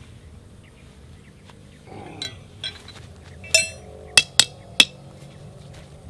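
Four sharp metallic clinks with brief ringing, a little past halfway through, as metal tent-pole parts knock together while a flysheet pole is set up; a short scraping rustle comes just before them.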